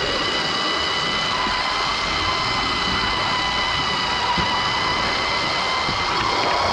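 O gauge model locomotive running along its garden track, heard from on board: a steady high whine from its motor and gearing over a constant rumble of wheels on the rails.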